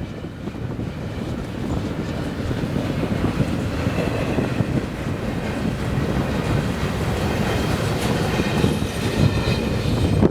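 Double-stack intermodal freight cars rolling past, steel wheels clattering steadily over the rail, with a faint high wheel squeal in the second half.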